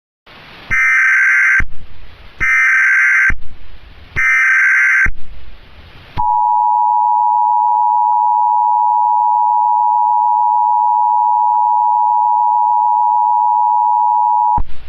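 Emergency Alert System tones: three bursts of the SAME digital header, each just under a second, with hiss between them. Then the two-tone EAS attention signal holds steady for about eight seconds and cuts off near the end. These are the tones that open a new alert.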